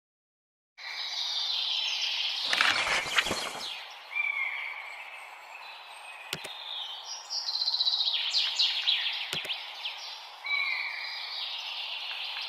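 Birds chirping and singing, starting just under a second in, with a whoosh sound effect about two and a half seconds in and two sharp mouse-click sound effects, about six and nine seconds in.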